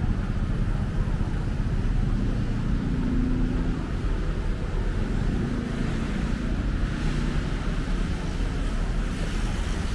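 Steady road traffic noise: car engines and tyres on a busy city street, a continuous low hum with no single event standing out.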